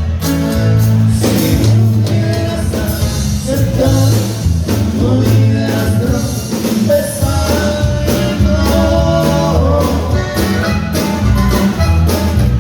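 Norteño band music with singing over a steady bass beat.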